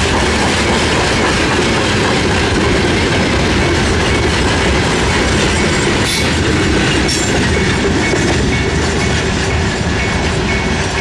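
Freight wagons rolling steadily past over the rails, with wheel clatter and two sharp clanks about six and seven seconds in. A level-crossing warning signal beeps repeatedly, clearer near the end.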